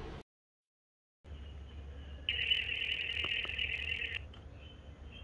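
Phone ringing tone heard while a call is being placed: a high, buzzing ring that sounds for about two seconds, pauses, then rings again, over a low steady hum. Near the start is a second of dead silence at an edit cut.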